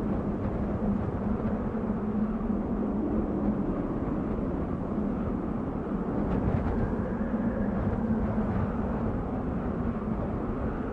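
Desert wind blowing steadily, a low rushing noise that swells slightly a little past the middle.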